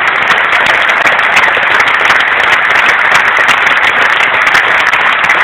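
Large crowd applauding, loud and steady.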